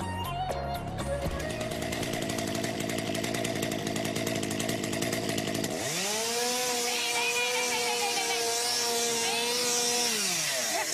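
Chainsaw running: a steady noisy hum, then about six seconds in it revs up to a high, steady whine, holds for about four seconds, and winds down near the end.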